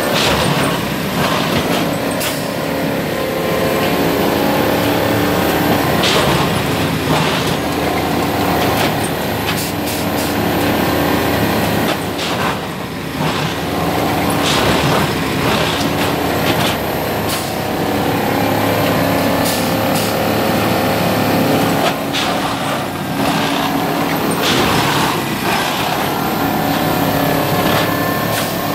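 Plasser & Theurer track maintenance machine working: a heavy diesel engine runs at a steady pitch, broken every few seconds by short sharp hisses and clanks from its working gear.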